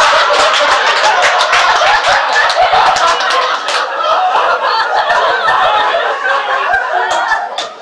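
An audience laughing together, many voices at once, loud and sustained, easing off a little near the end.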